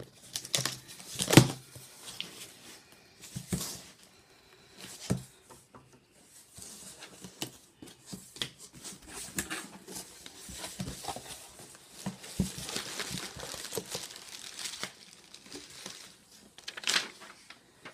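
Packing tape ripped from a cardboard shipping box, with a sharp rip about a second in the loudest sound, followed by the cardboard flaps being pulled open and paper and packing material rustling and crinkling as the box is unpacked.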